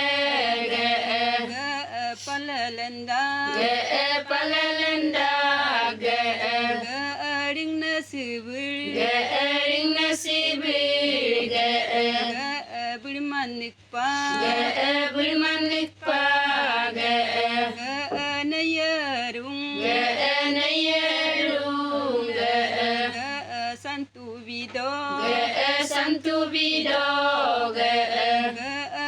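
A group of voices chanting an Adi Ponung folk song, with long held melodic phrases that waver in pitch. Short breaks fall between phrases.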